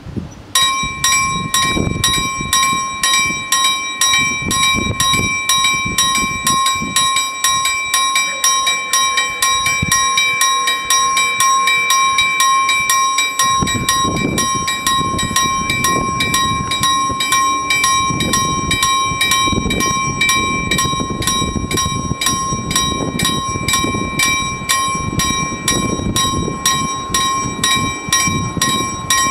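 Two electric level-crossing warning bells start ringing about half a second in and keep up a rapid, even clanging, warning that a train is approaching and the crossing is closing.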